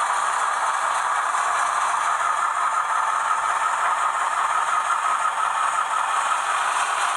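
HO-scale Auscision 442 class model diesel locomotive with DCC sound running around a model train layout pulling a load: a steady, even rattle of the model train moving over the track.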